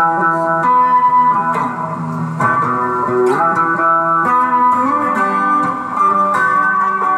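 Guitar played in a loose jam: chords and notes struck every second or two and left to ring, with some notes sliding up and down in pitch.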